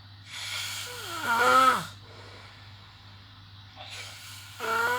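A person snoring: two snores about three and a half seconds apart. Each is a rasping breath that builds into a pitched rattle falling in pitch. A faint steady hum runs underneath.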